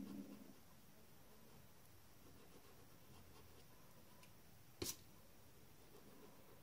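Near silence: faint rubbing of an eraser on drawing paper, with one sharp click a little under five seconds in.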